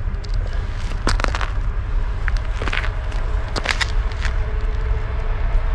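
Footsteps on wet, gritty paving tiles, with a few short crunching crackles, over a steady low rumble.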